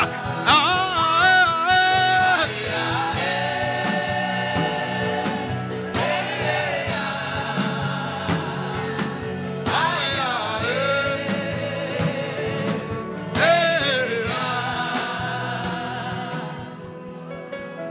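Gospel worship singing over instrumental accompaniment: long sung phrases with wavering, held notes, fading out near the end.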